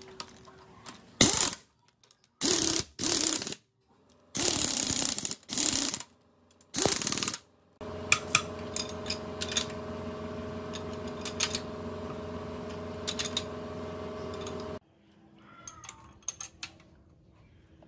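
Socket ratchet wrench clicking in five short runs as nuts are run down on the cylinder head of a Yanmar S13 CE engine. About halfway through, a steady hum with several tones sets in, with scattered light metal clicks over it; it stops abruptly about three seconds before the end.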